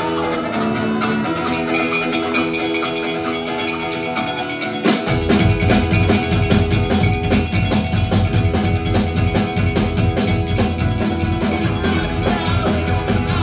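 Live rock band playing: electric guitars ring out alone at first, then about five seconds in the drums and percussion come in and the full band is playing.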